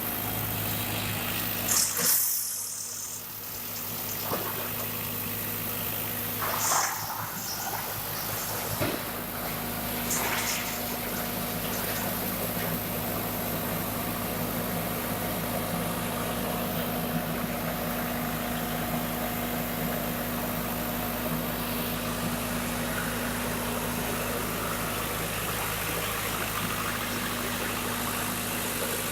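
Diesel engine of a wood chipper running steadily at constant speed, with a few brief sharp noises in the first ten seconds.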